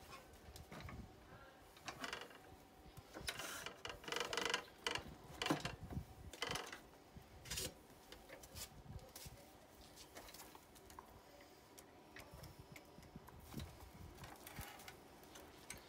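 Handling noise from an electric scooter's handlebar and a screwdriver: scattered knocks, clicks and rustles, busiest in the first half and sparser after about eight seconds.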